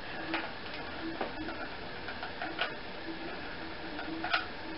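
A few light, separate clicks and taps from a hot glue gun being handled and squeezed while dabs of glue are laid on a small wooden block.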